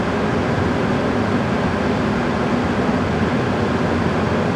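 Steady rushing and humming of an indoor shooting range's ventilation system, running evenly with no shots.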